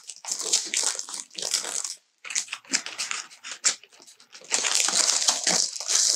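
Crinkling and rustling of a clear plastic packaging sleeve and paper sheets being handled, a run of quick crackles. The crackling turns dense and louder a little past halfway.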